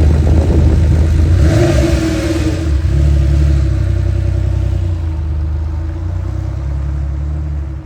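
Porsche 911's air-cooled flat-six engine running, with a brief rev about two seconds in, then a steady rumble that slowly fades.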